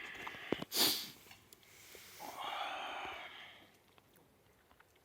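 A person's breath sounds, with one short, loud burst a little under a second in, then a longer breathy sound lasting about a second and a half.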